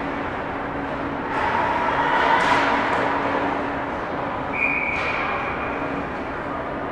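Ice rink ambience during a hockey game: a steady noisy wash with a faint low hum, swelling louder about a second in, with a short high tone near the five-second mark.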